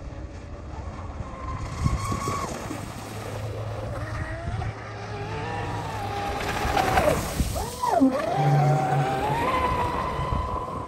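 The brushless electric motor and propeller of a Blackjack 42-inch 8S RC catamaran whining as it runs at speed across the water, its pitch rising and falling with the throttle. The whine dips sharply about eight seconds in and climbs back up, over the hiss of spray from the hull.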